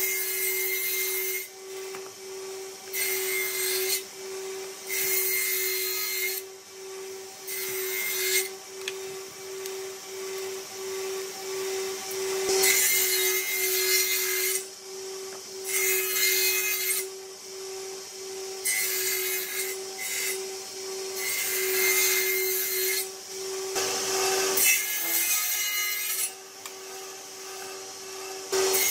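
Table saw on a combination woodworking machine running with a steady hum, its circular blade cutting through a carved hardwood panel. The cutting comes as a series of loud rasping stretches, each a second or two long, with the motor's hum between them.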